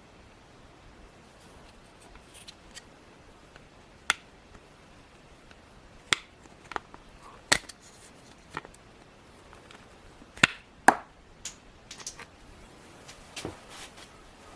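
Scattered sharp clicks and knocks of hard plastic door-trim parts being handled and set down, about a dozen, the loudest pair about two-thirds of the way through.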